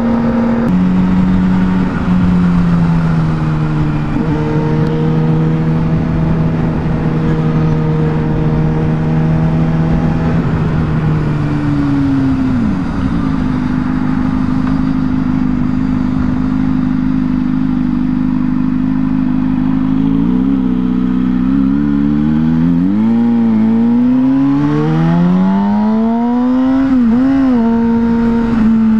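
Engine of a Kawasaki ZX-6R sport bike, heard from the rider's seat while riding. It holds steady revs for long stretches, with a pitch change about a second in and another around the middle. In the last third the revs rise and fall several times, then climb steeply.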